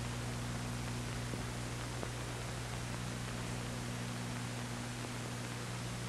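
Steady hiss with a low electrical hum underneath, unchanging throughout: the noise floor of an old documentary film soundtrack, with no speech or music.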